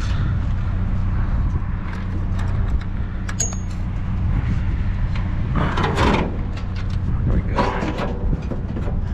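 A vehicle engine idling with a steady low hum, while things are handled close by: scattered clicks and two louder scraping, rustling noises about two-thirds of the way in.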